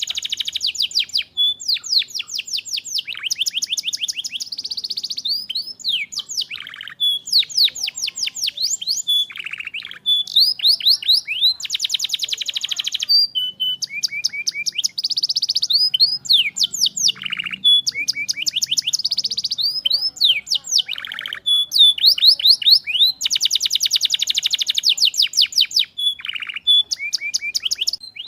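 Domestic canary singing a continuous, high-pitched song of rapid trills, each phrase a quick run of the same repeated note before switching to the next.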